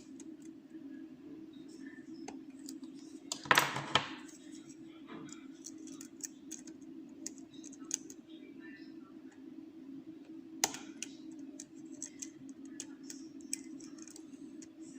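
Lock pick and tension wrench working the pins of a Eurospec MP5 euro cylinder: many small metallic clicks and scrapes, with a louder clatter about three and a half seconds in and a sharp single click near eleven seconds. A steady low hum runs underneath.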